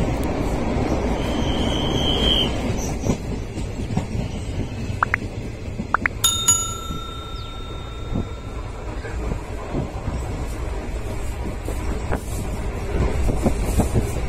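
Passenger train running, heard from inside the carriage: a steady low rumble with scattered knocks from the wheels on the track. About six seconds in, one sharp metallic ring fades out over about two seconds.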